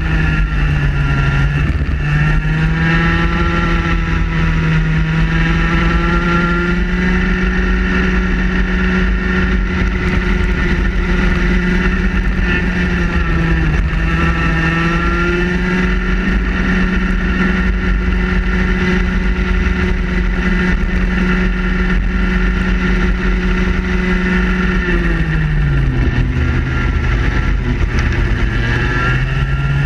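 Two-stroke Vortex ROK kart engine at racing speed, heard on board: the note drops as the kart brakes into corners and climbs again on the exits. A long steady high-rev stretch in the middle falls off sharply about 25 seconds in, then the revs rise again near the end.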